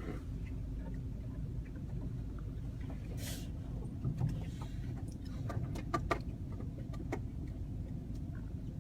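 Steady low rumble of a car heard from inside the cabin with the engine running. A short hiss comes about three seconds in, and a handful of sharp taps and clicks come between about five and seven seconds in.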